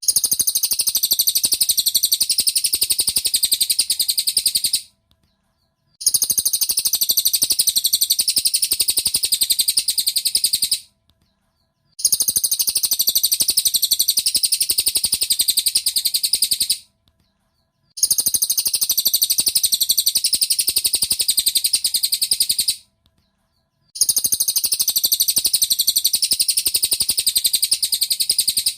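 Recorded song of a cililin (rufous-tailed shama) played as a looped training track: a high, rapid trilling chatter in stretches of about five seconds, each broken by a pause of about a second, four times over.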